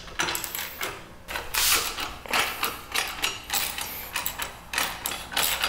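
Socket-wrench ratchet on a long extension clicking in short repeated strokes, about two a second, as a frame-slider bolt is unscrewed.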